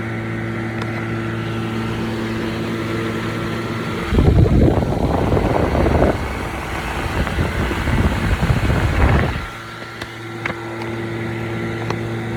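Milwaukee M18 jobsite fan running on its AC adapter at speed three, a steady motor hum with airflow noise. From about four seconds in to about nine and a half seconds, a louder, rougher low rush of air buffeting the microphone covers the hum.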